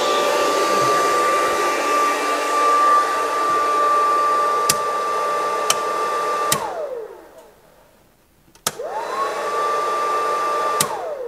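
Hand-held hair dryer running with a steady high whine and a rush of air, with a few sharp circuit-breaker clicks. One snap cuts its power and the motor winds down to a stop. Another click restarts it, it spins back up for about two seconds, and then it is cut off again and winds down: the breaker feeding the outlet is being found and switched off.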